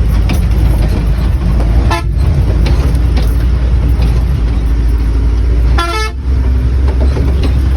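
Vehicle engine running with a steady low rumble, and a horn sounding twice: a short toot about two seconds in and a longer one about six seconds in.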